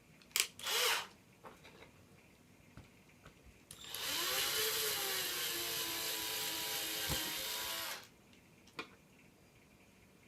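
A power drill is switched on, its motor speeding up to a steady pitch, and it runs for about four seconds before stopping. It is preceded by a few short clicks of handling.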